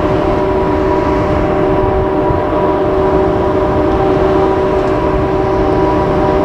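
JR Freight train pulled by an electric locomotive passing close by: a heavy, steady rumble of wheels on rail with a steady whine of several pitches over it.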